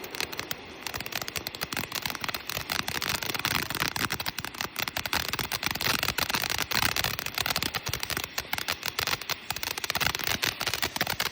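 Small consumer firework crackling: a dense, rapid run of sharp pops and clicks that keeps going steadily.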